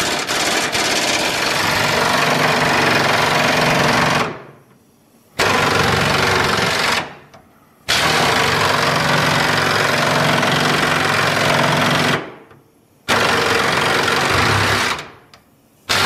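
Earthquake impact wrench hammering on a truck-bed mounting bolt in four long bursts, with about a second's pause between them, each burst trailing off as the trigger is let go. The bolt is not letting go easily.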